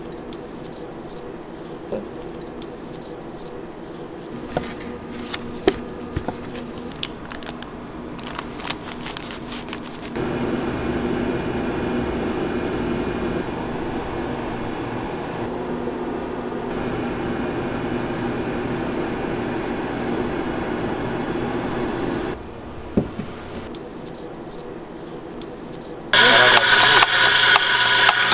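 Electric espresso grinder starting loud about two seconds before the end, grinding coffee into a portafilter. Before it: quiet room tone with scattered light clicks and taps, then a steady hum for about twelve seconds in the middle.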